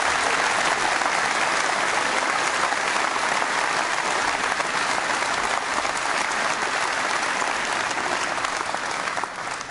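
Conference audience applauding steadily, the clapping thinning out just before the end.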